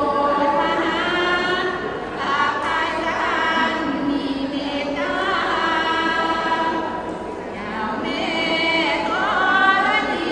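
A Sorapan group of women singing Thai Buddhist devotional verse together in a slow melodic chant. They hold long notes that bend up and down in phrases a few seconds long.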